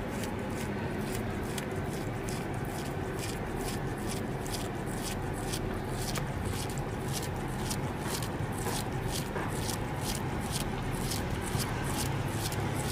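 A cat licking and sucking at a stick treat held in its paws, making short, regular licking clicks about three times a second over a steady low hum.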